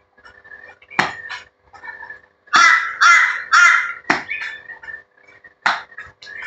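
A crow giving three harsh caws in quick succession about two and a half seconds in, with a few sharp taps before and after.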